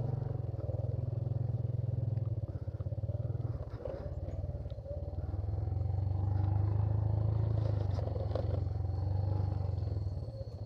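Motorcycle engine running while being ridden. It eases off about three and a half seconds in, picks up again, and drops away near the end.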